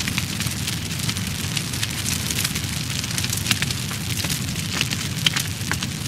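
Fire burning: a steady low rush of flames with irregular crackles and pops throughout, two sharper pops about three and a half and five seconds in.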